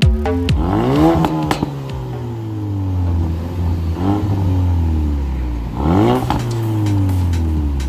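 Ford Focus RS engine blipped three times through its exhaust, each rev rising quickly and falling slowly back to idle, with a few pops as the first rev falls away.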